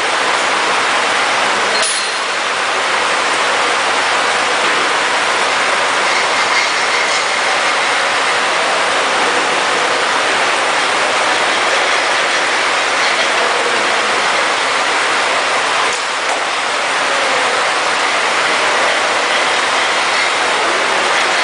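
Small collet-chuck turret lathe running under power, its spindle turning while turret tools, a drill near the end, cut into the metal bar: a steady mechanical noise.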